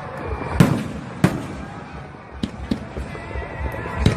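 Fireworks going off: two loud, sharp bangs about half a second and a second and a quarter in, followed by a scatter of smaller pops and another bang near the end.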